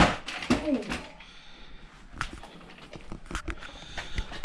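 Maverick Quantum Flux RC car, still in its box, dropped and hitting the ground in a drop test: one sharp impact right at the start, followed by a few scattered light knocks and clicks as it settles and is handled.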